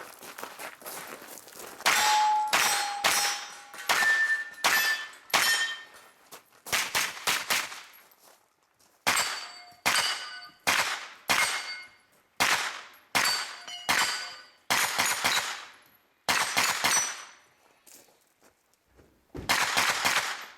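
Pistol-caliber carbine fired in quick strings of shots, with steel targets ringing after several of the hits. There are brief pauses between the strings.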